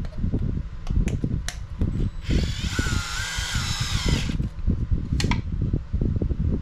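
Electric screwdriver driving small machine screws, its motor whining for about two seconds in the middle, amid uneven low rumbling and a few sharp clicks of handling the parts.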